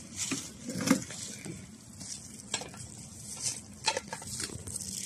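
Rustling and scattered light clicks and knocks, about a second apart, from gloved hands handling a foot on a disposable sheet.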